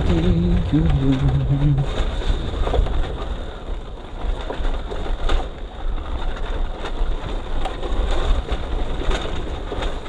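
Motorcycle being ridden along a rough dirt track: a steady low rumble with scattered knocks. For the first two seconds a pitched tone steps between a few notes above it, then stops.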